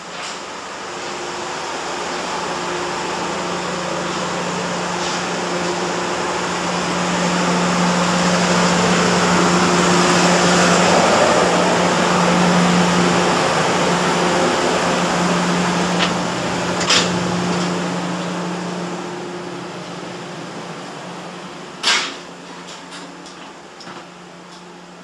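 Steady hum of a train carriage's air-conditioning and machinery, growing louder as the passage between carriages is walked through, then fading. A few sharp clacks near the end, the loudest one close to the end.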